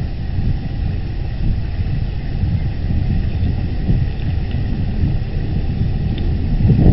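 Wind buffeting the nest camera's microphone: a steady, gusting low rumble, with a few faint high bird chirps.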